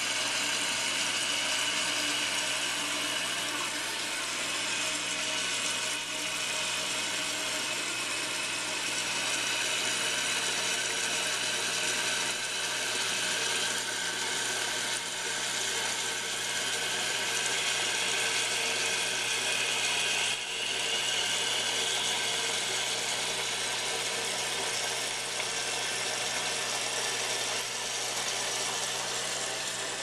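Toilet tank refilling after a flush through a Fluidmaster 400A fill valve: a steady hiss of water rushing through the valve with a high whine in it, and water splashing and churning into the tank. The whine rises slightly partway through.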